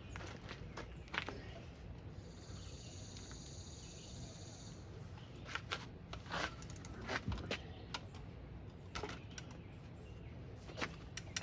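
Scattered light clicks and knocks as an e-bike is handled out of a pickup's cab. About two seconds in, an insect trills steadily at a high pitch for a couple of seconds.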